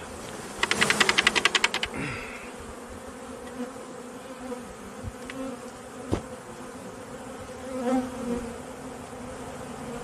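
Honeybees buzzing in the air around an opened hive, a steady, wavering hum. A rapid rattle of about ten clicks a second comes for about a second near the start, and a single sharp knock comes about 6 seconds in.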